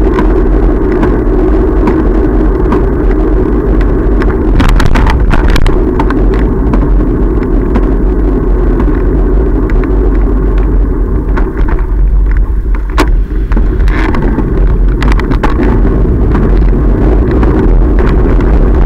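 Steady wind and road rumble picked up by a camera on a moving bicycle, with scattered clicks and rattles, a cluster about five seconds in and more later on.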